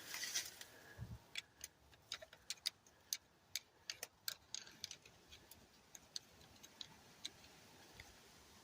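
Faint, irregular small clicks and taps, close together in the first few seconds and thinning out after that, with no engine cranking or running.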